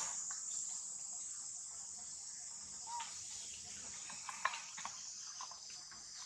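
Insects trilling steadily in a high-pitched, continuous chorus, with a few soft clicks and taps about four and a half seconds in.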